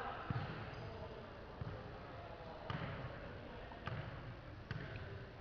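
A basketball bouncing on a court floor: a handful of separate thuds, irregularly spaced about a second apart, over a low background murmur.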